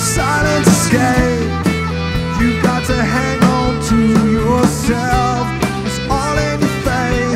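Live grunge-rock band playing an instrumental passage: electric guitars, bass and drums, with repeated cymbal crashes.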